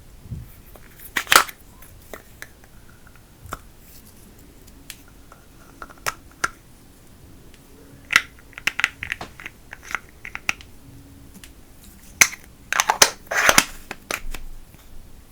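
Slime being squished and worked by hand, giving off irregular sticky clicks and crackles. There is one sharp crackle early on, a busier run of clicks in the middle, and the loudest cluster near the end.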